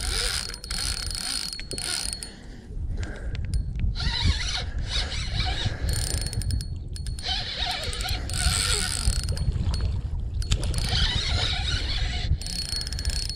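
Fishing reel clicking and whirring as a hooked channel catfish is played toward shore, over a steady low rumble.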